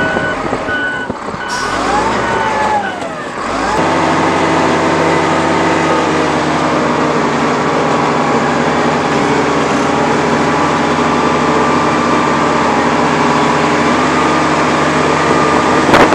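Wheel loader's diesel engine running as the machine drives along. For the first few seconds its pitch rises and falls, with a repeated beeping alarm. From about four seconds in it runs at steady revs.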